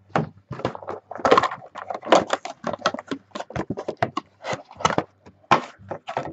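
Crackling, tearing and snapping of packaging as a sealed box of trading cards is ripped open by hand, a fast irregular run of sharp crinkles and rips.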